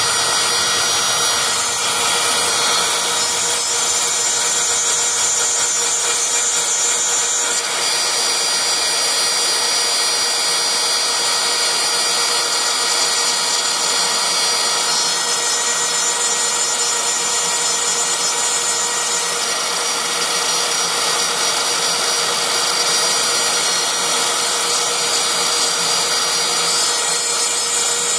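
CNC router spindle running with a small cutter milling 6061 aluminium plate: a steady, loud high-pitched whine over the hiss of the cut.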